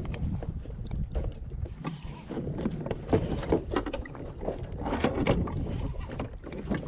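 Wind rumbling on the microphone of a fishing kayak at sea, with water lapping and scattered light knocks against the hull and gear.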